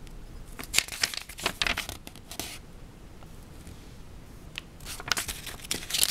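Paper rustling and crinkling as a fold-out paper leaflet from a LEGO set is unfolded and handled. The handling comes in bursts, about a second in and again near the end, with a quieter stretch between.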